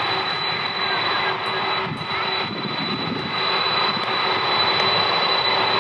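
A Boeing 747-400's four General Electric CF6-80 turbofans running at taxi power: a steady jet rush with a high, steady whine, growing a little louder near the end.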